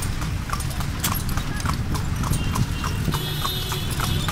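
Horse's hooves clip-clopping on a paved road as it pulls a tonga, an even beat of roughly three hoofbeats a second over the low rumble of the moving cart.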